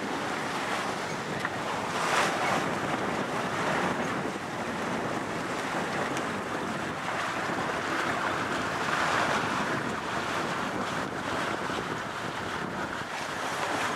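Wind buffeting the microphone over the rush of sea water along the hull of a sailing yacht under way, a steady noise that swells now and then.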